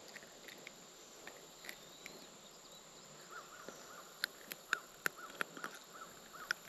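Faint outdoor river ambience: a steady high insect drone, with a small bird's short chirps repeated about three times a second from about three seconds in. A few sharp light clicks stand out between about four and six and a half seconds.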